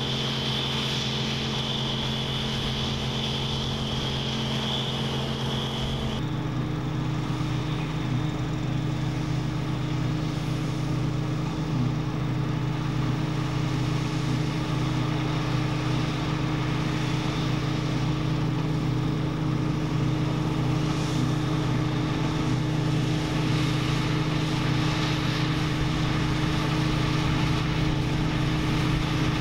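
Claas Dominator 98 SL combine harvester running steadily at work: a constant engine hum with a high whine over it. About six seconds in, the whine stops and the hum changes abruptly to a different steady pitch.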